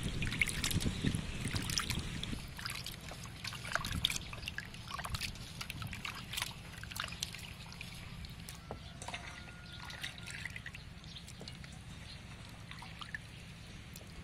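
Hands squeezing and sloshing cubed raw beef heart in a metal bowl of water: splashing, dripping and trickling, loudest in the first few seconds and fading toward the end.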